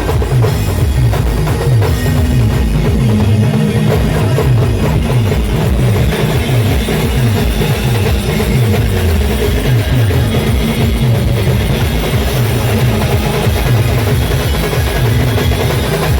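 A live band playing loud, drum-heavy music with a steady driving beat of heavy low drums.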